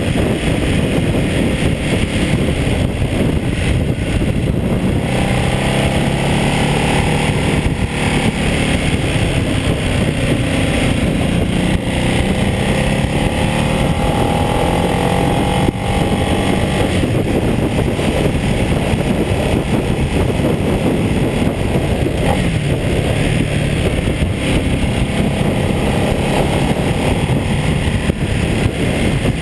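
Ducati Multistrada 1200S L-twin engine running at speed on a winding road, its note rising and falling in places, under a steady rush of wind on the bike-mounted camera.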